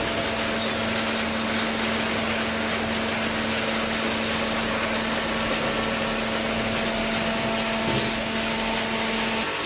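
A machine running steadily: a constant hum over an even rushing noise. The hum cuts off about nine and a half seconds in.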